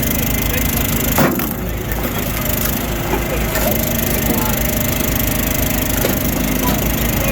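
Engine-driven log splitter running steadily while firewood cracks and splits, with a sharp crack about a second in.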